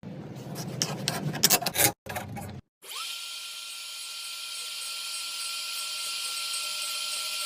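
Wood rubbing and scraping with quick clicks for about two and a half seconds. After a short break, a small power tool motor starts and runs at a steady high whine.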